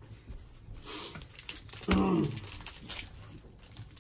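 Dragon Ball Super trading cards being flipped through in the hand, a run of light clicks and card-on-card rustles. A brief vocal sound cuts in once, a little under halfway through.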